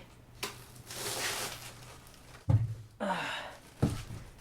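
Packaging being handled with a rustle, and two dull thumps about two and a half and four seconds in as things are set down or bumped.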